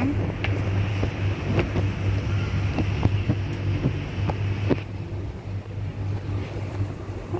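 Outdoor street background: a steady low hum, like distant traffic, with light irregular clicks of footsteps as someone walks. A hiss in the background stops a little before the end.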